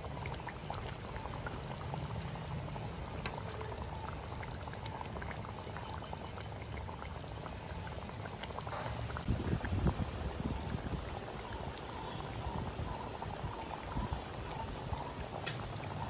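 Thick dried-fish and egg curry simmering in a pot, bubbling steadily with many small pops of bursting bubbles over a steady low rumble. A brief louder low disturbance comes about ten seconds in.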